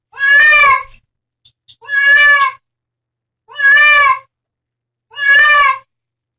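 A cat meowing loudly and insistently: four long, alike meows at an even pace, about one every second and a half.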